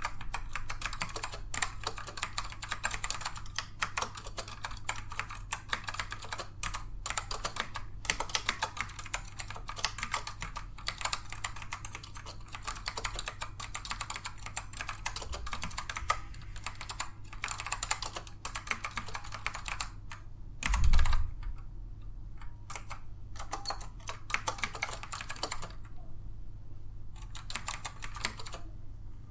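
Fast continuous typing on a Dell AT102W keyboard with black Alps switches, which are tactile rather than clicky. The typing breaks off briefly twice in the second half, and one short, loud, low thump comes about two-thirds of the way through.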